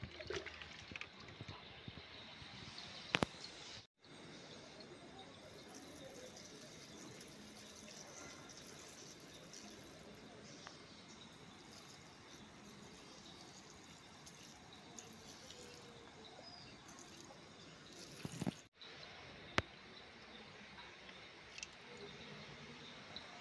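Water scooped with a plastic mug from a bucket and poured onto the soil of potted plants: faint pouring, trickling and dripping, with a couple of sharp clicks.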